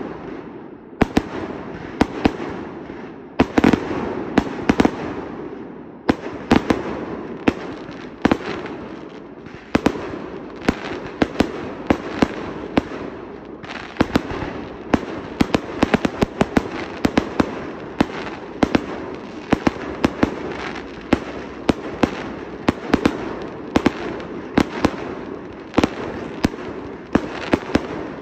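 Firework display firing in quick succession: a rapid, uneven run of launch and burst bangs, several a second, over a steady hiss from the burning stars.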